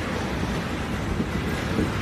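Train rolling along the track: a steady rumble with track noise.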